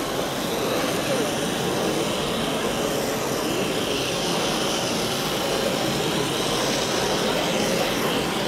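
Steady background noise of a busy exhibition hall: a continuous even rumble with faint distant voices.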